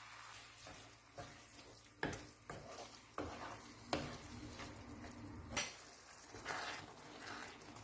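A cooking utensil stirring food in a pan, knocking against the pan half a dozen times with scraping in between.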